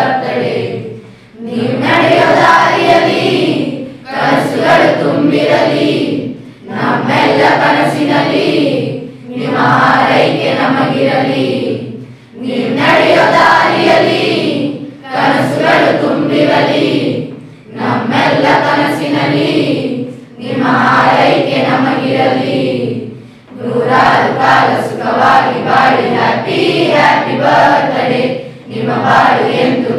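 A group of schoolchildren, boys and girls, singing together as a choir, in phrases of about three seconds with short breaks for breath between them.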